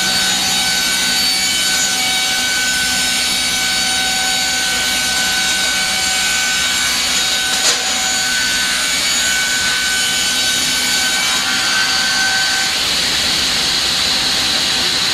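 Perun MKS 1000 electric multi-blade circular saw ripping a 110 mm cant into boards under load: a loud, steady whine of the blades with a hiss of cutting, and one short click about halfway through.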